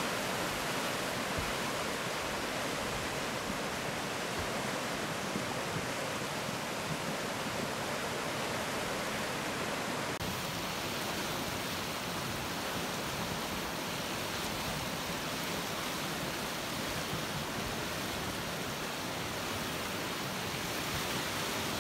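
Flash flood debris flow: muddy floodwater rushing as a steady, unbroken noise, with a slight change in tone about ten seconds in.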